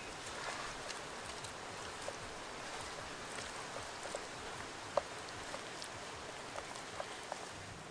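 Steady outdoor background hiss with faint, scattered clicks and ticks from handling cooked pig ear by hand, one sharper click about five seconds in.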